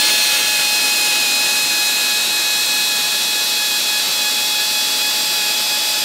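Electric drill set to hammer drilling, running steadily as a 10 mm carbide-tipped masonry bit bores into an aerated concrete block: a loud, even drilling noise with a steady high motor whine.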